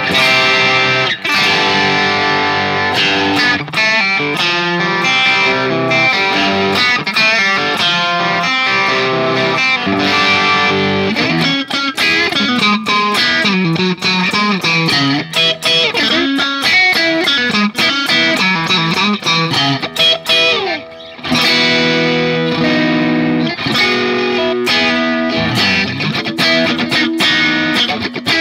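Telecaster-style electric guitar played through a Valeton GP200 modeler on a Marshall JCM800 amp model and 1960AV 4x12 cabinet, giving a crunchy overdriven rhythm tone. Chords ring out, then single-note lines run through the middle, a brief break about 21 seconds in, and chords again.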